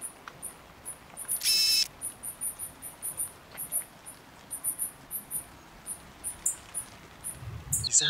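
Rainforest insect chorus: a high-pitched chirp repeating several times a second, with a short, loud buzzy animal call about a second and a half in.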